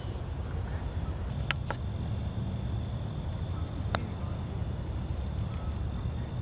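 Insects chirring in a steady, high, unbroken tone over a low rumble, with a few sharp clicks about a second and a half in and again around four seconds.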